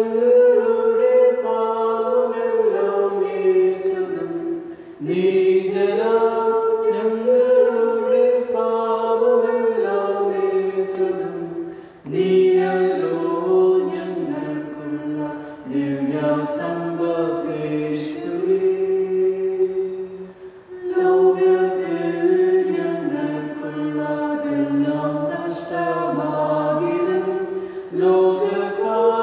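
Voices singing a Malayalam church hymn, apparently unaccompanied, in long held phrases with short breaks between lines.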